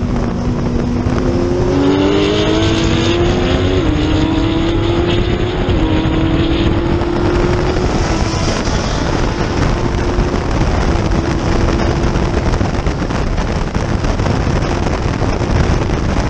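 Miniature race car's engine accelerating on track, its pitch climbing and stepping down twice as it shifts up, then holding steady, over heavy wind and road noise.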